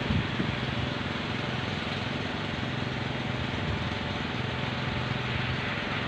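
Kolecer, Sundanese wooden wind propellers mounted on tall poles, whirring steadily in strong wind: a low, even droning hum under a rush of wind noise.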